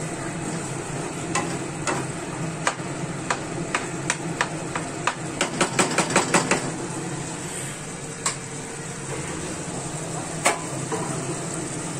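White plastic spatula stirring a thick, simmering vegetable masala in a nonstick wok, over a steady sizzle. Quick clicks of the spatula knocking against the pan come in a fast run about four to six seconds in, with single knocks later.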